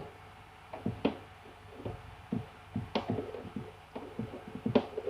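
Irregular light taps and clicks as a hot air gun and its power cable are handled during unboxing.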